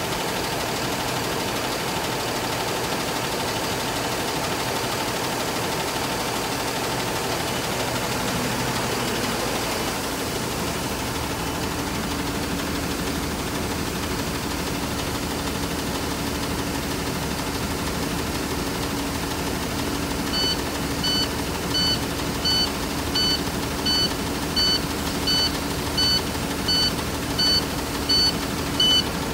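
Cummins ISB6.7 inline-six turbo diesel idling steadily at about 750 rpm. About two-thirds of the way through, a high electronic beep starts repeating about one and a half times a second over the idle.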